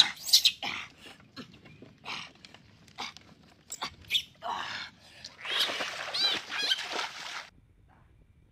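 Shrill animal squeals and cries in repeated bursts, with scattered knocks and splashes, cutting off suddenly about seven and a half seconds in.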